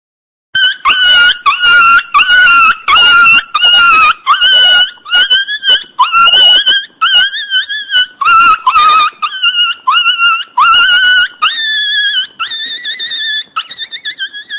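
A dog squealing and whining in a fast run of short, high-pitched cries, rough and yelping for the first several seconds, then turning into longer wavering whines.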